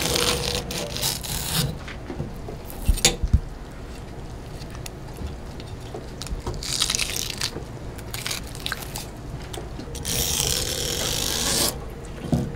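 Knife scraping and slicing along an eel pinned to a wet wooden cutting board as it is split and cleaned, with a few sharp knocks about three seconds in and two longer scraping strokes, one in the middle and a longer one near the end.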